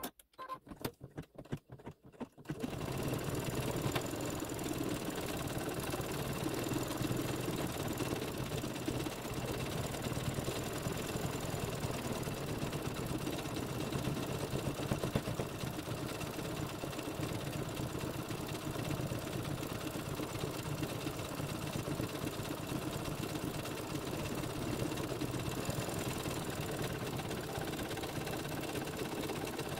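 Embroidery machine starting up with a few slow, separate stitches that quickly speed up. It then runs steadily at full speed, sewing a satin stitch.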